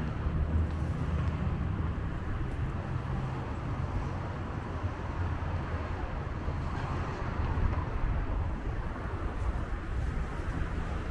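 City street ambience: steady traffic noise from passing cars, with a low engine hum underneath.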